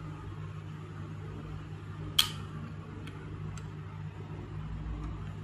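A film camera being handled: one sharp click about two seconds in, then a few faint ticks, over a steady low hum.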